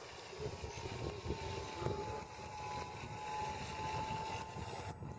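Radio-controlled model airplane's engine buzzing in flight as it passes close overhead, its pitch sagging slightly as it goes by, over a low gusty rumble of wind on the microphone.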